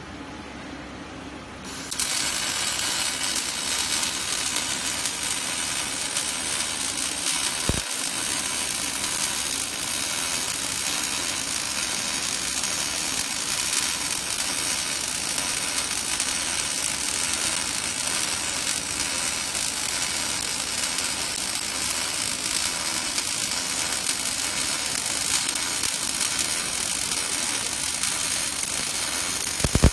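Robotic laser welding head working the seam between a screw conveyor's spiral flight and its shaft: a steady hissing crackle that starts suddenly about two seconds in. A single sharp knock comes just before the end.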